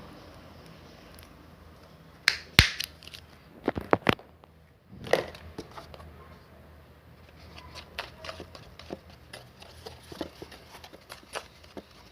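Handling noises: a cluster of sharp knocks and clicks about two to four seconds in, a brief rustle-like burst a second later, then lighter scattered clicks.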